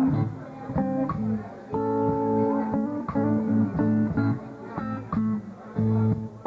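Live blues band playing an instrumental fill between sung lines: electric guitar picking a lick over a bass guitar line.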